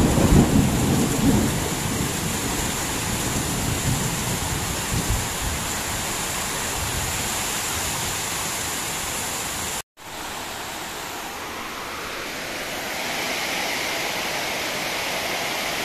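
Heavy rain pouring steadily, with a loud low rumble in the first second or so. The sound cuts out for an instant near ten seconds, and the rain goes on slightly quieter after it.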